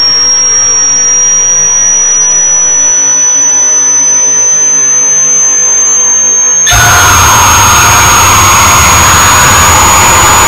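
A loud, piercing high-pitched tone, slowly creeping upward in pitch, layered over a droning mix of steady tones. About two-thirds of the way through, a loud harsh rushing noise cuts in abruptly beneath the tone.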